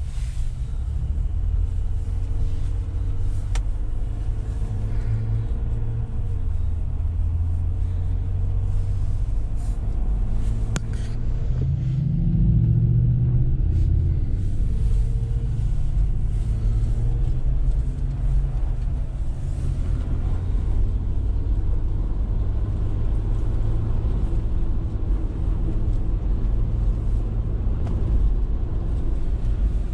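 A car running: a steady low engine and road rumble. The engine note swells and falls back about twelve seconds in.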